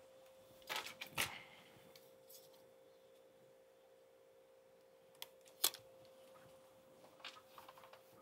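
A few sharp clicks and taps from handling at a repair bench, loudest a little over halfway through, over a faint steady hum.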